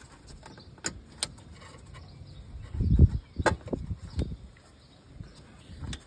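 Scattered sharp clicks and knocks of gloved hands handling the plastic weather shield and metal panels in an engine bay, with one duller, louder thump about three seconds in.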